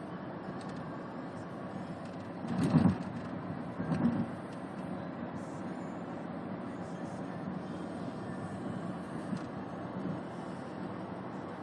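A sleeping person snoring: two short, low snores a little over a second apart, over a steady low background noise.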